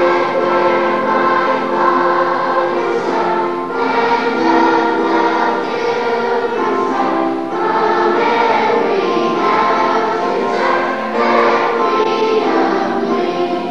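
Children's choir of fourth and fifth graders singing together, holding long notes, getting softer near the end.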